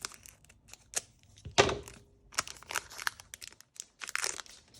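Foil wrapper of a Pokémon card booster pack being crinkled and torn open, with a run of sharp irregular crackles, the loudest about one and a half seconds in.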